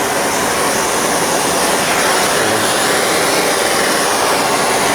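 Propane torch burning with a steady hiss, heating a 1/2-inch copper pipe fitting for soldering.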